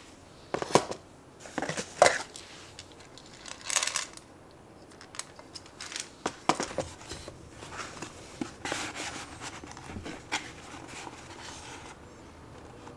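Close handling of items and packaging while unpacking: a string of light clicks and knocks, the sharpest two near the start, a short crinkle of plastic or paper about four seconds in, and a longer rustle in the second half.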